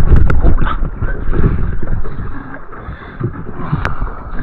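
Wind and water noise buffeting the microphone at the sea surface beside a boat. It dips quieter around the middle and rises again near the end, with a few sharp knocks.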